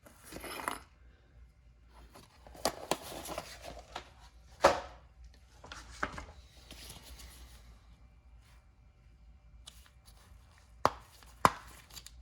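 A box of tools being opened and handled: bursts of rustling and scraping, with sharp clicks and knocks, two of them close together near the end.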